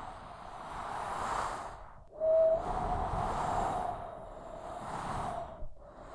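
Strong desert windstorm gusting, rising and falling in waves of rushing noise. A whistling howl comes in sharply about two seconds in and fades over the next few seconds.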